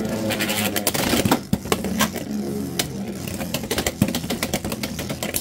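Two Beyblade X spinning tops, Dran Buster and Rhino Horn, whirring in a plastic stadium and clashing again and again, a rapid run of sharp clicks and knocks over a steady spinning whir.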